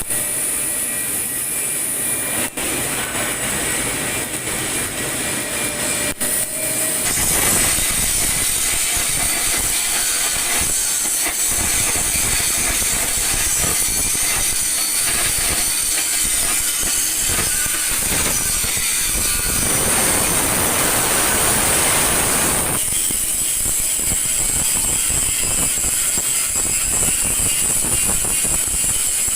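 Automatic pipeline welding: a steady, loud hiss and crackle of the welding arc with a high-pitched edge. The sound thickens about seven seconds in and thins again around twenty-three seconds.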